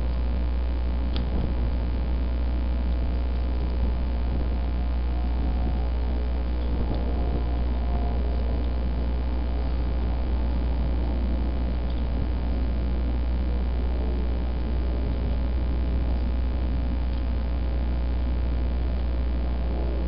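Steady low hum with an even background hiss, unchanging throughout.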